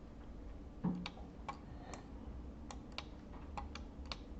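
Scattered, irregular clicks from a computer mouse and keyboard being operated, about a dozen short sharp clicks.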